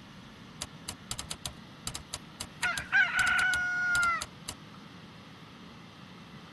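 A rooster crowing once: a few short notes, then one long held note about a second long that drops at the end. Scattered sharp clicks and a steady low background hiss go with it.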